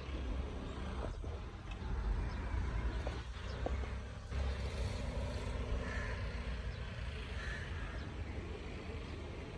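Outdoor ambience: a steady low rumble with bird calls over it, two clearer ones about six and seven and a half seconds in.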